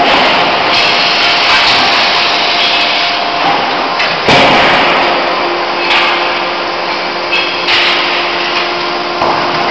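Loud, steady forge-shop machinery noise from the hydraulic die forging hammer and the presses around it, with a thin steady whine running through it. About four seconds in comes a sudden louder knock, and a few smaller knocks follow later.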